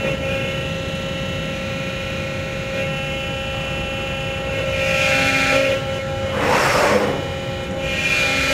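Cincinnati 90FMII CNC hydraulic press brake running: a steady hum from its hydraulic unit with several steady whining tones over it. Three louder hissing surges come in the second half, the middle one the loudest.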